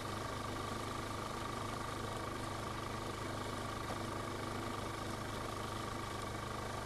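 Engine noise: a steady low hum with a constant high whine, unchanging throughout.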